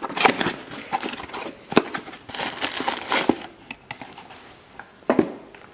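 Cardboard packaging of a new rear wheel hub rustling and crinkling as it is unpacked by gloved hands, with several sharp clicks and knocks.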